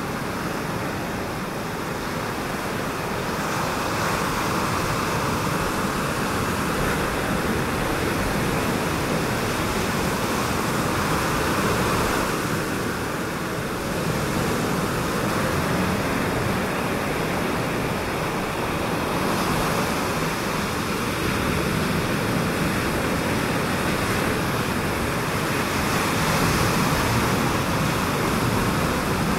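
Ocean surf on a reef heard from a distance: a steady wash of noise that swells and eases every several seconds.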